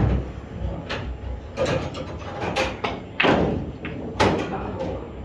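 Pool balls clacking and a cue striking the cue ball: several sharp clicks scattered through, the loudest about four seconds in.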